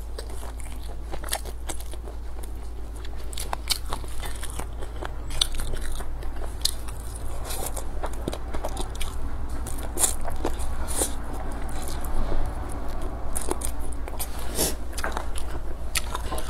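Close-miked chewing and biting of braised squid, with sharp wet mouth clicks and smacks scattered throughout. A steady low hum runs underneath.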